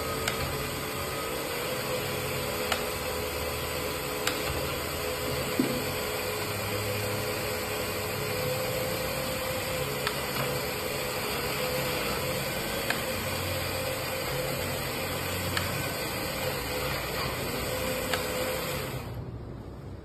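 Radio-controlled 1/14 scale Iveco 4x4 dump truck running while standing still: a steady mechanical hum and hiss with a wavering tone, broken by a few light clicks. It fades away near the end.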